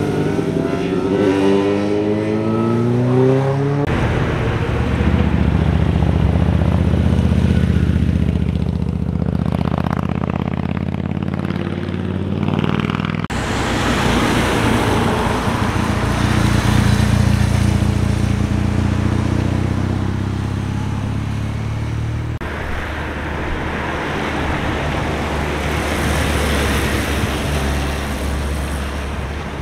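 Motorcycle engines heard from the roadside as several bikes ride one after another through a hairpin bend, starting with a Suzuki GSX-R sport bike and later a BMW GS adventure bike. In the first few seconds the engine note rises and falls, then settles into steadier running. The sound changes abruptly three times as one bike gives way to the next.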